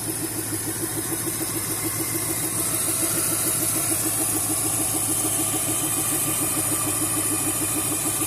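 Ford 351 Windsor V8 with an RV cam idling with a steady, rhythmic "wup wup wup" pulse in time with engine speed. The owner likens it to a dead cylinder and wonders whether it comes from the power steering pump.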